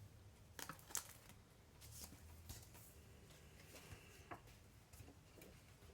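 Faint crinkling and rustling of a plastic packet of sticker flakes being handled, with a few short sharp crackles about half a second in, around two seconds in and around four seconds in.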